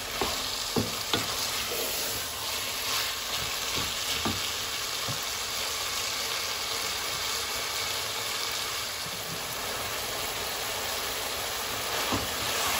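Keema (minced meat) and potato cubes sizzling as they fry down in a pot, stirred with a spoon, with a few knocks and scrapes of the spoon against the pot in the first few seconds. This is the bhuna stage, frying the mince and potatoes dry before water is added.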